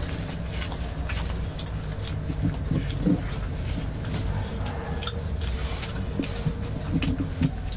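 Eating sounds: puris torn and dipped by hand into potato curry, with wet squishing, chewing and many small smacks and clicks, over a steady low hum.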